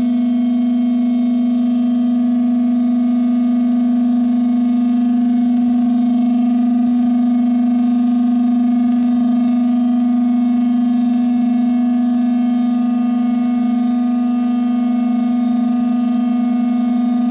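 Ciat Lonbarde Plumbutter and Cocoquantus modular synth patch holding a steady low drone tone with a ladder of higher overtones, given a little spring reverb by a Neunaber Stereo Wet pedal. Faint flickering crackle sits beneath it from about five seconds in.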